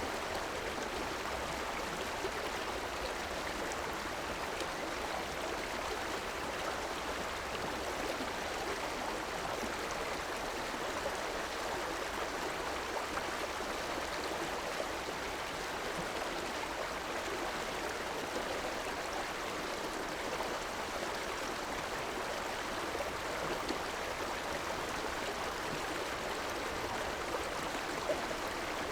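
Shallow urban river running steadily over rocks: a continuous rushing, gurgling flow with small splashes.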